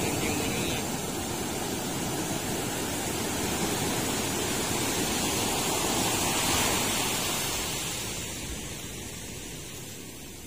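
Sea surf: a steady rush of waves, swelling to a peak about six and a half seconds in and then easing off.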